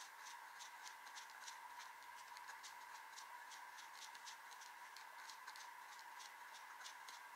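Faint scratching of a Platinum 3776 Century fountain pen's 14k gold fine nib writing letters on grid notebook paper: short, irregular strokes, several a second, over a steady faint hum.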